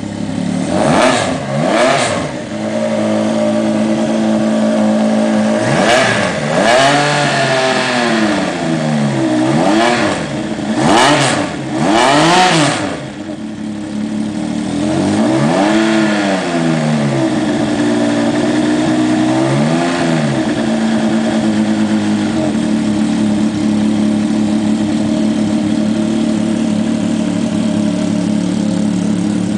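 Yamaha snowmobile engine converted for a gyroplane, running on a ground test without a propeller: it is revved up and back down in a string of quick throttle blips, then two slower rises and falls, before it settles to a steady, smooth idle for about the last eight seconds.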